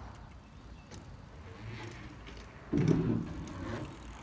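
BMX bike riding up to a jump over a stair set: the tyres are faint at first, then give a short, loud rumble about three seconds in.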